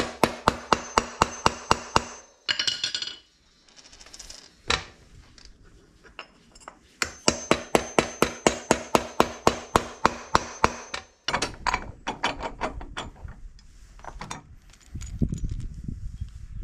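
Hammer striking rapidly on the bushing in a mower wheel's metal hub, about five sharp, ringing blows a second. The blows come in two runs with a pause of several seconds between them, and stop about eleven seconds in.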